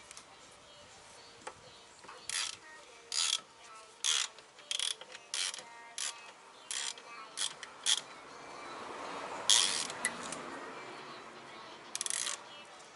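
Ratchet wrench worked in short strokes on the brake assembly: about a dozen quick bursts of clicking, irregularly spaced, with a softer rushing sound swelling up in the second half.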